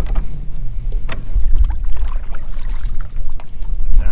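Kayak moving through shallow water: a steady low rumble of water and wind against the hull, with a few light knocks.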